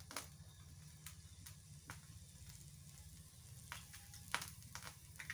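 Faint sizzling from a wok heating on a lit gas stove, with scattered sharp crackles and pops at irregular intervals.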